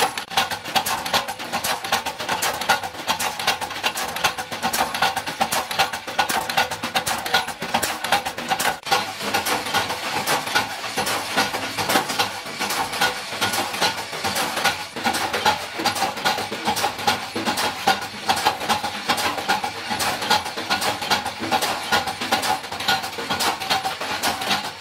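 Metal-pressing machinery for lamp-holder screw shells running steadily, with dense, rapid metallic clicking and clattering of the small pressed metal cups.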